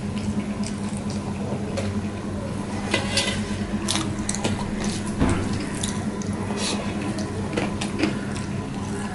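Chewing and mouth sounds of a man eating rice by hand, with his fingers mixing rice on a steel plate: many short clicky sounds scattered through, over a steady low hum.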